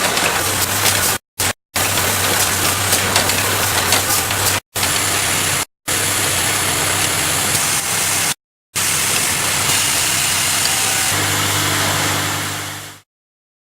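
Keyboard-switch production machinery running: a steady loud noise with a low hum underneath, broken off abruptly several times and fading out near the end.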